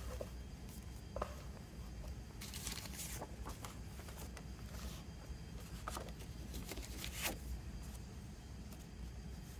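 Paper and cardboard rustling and sliding as a slipcase, booklets and a pamphlet are handled and laid down on crinkled paper, with scattered soft taps and clicks and a longer rustle about two and a half seconds in.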